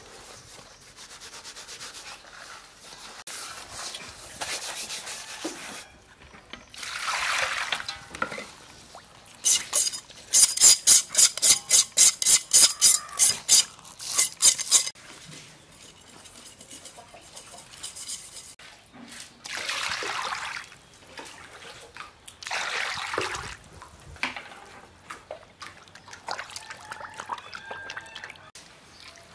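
Hands rubbing coarse salt over whole raw fish in a steel bowl, a gritty rubbing. From about ten seconds in, the loudest part: a knife scraping along the fish in quick even strokes, about three a second, scaling them. In the second half, water splashing as the fish are washed by hand in a bowl of water.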